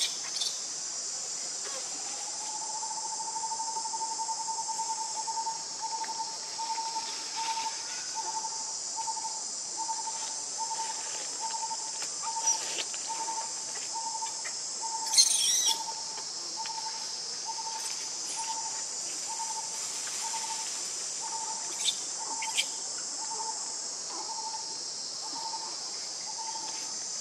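A steady high insect chorus of crickets or cicadas, with a bird repeating one short note about twice a second from about two seconds in. A few brief sharp noises cut through, the loudest about halfway.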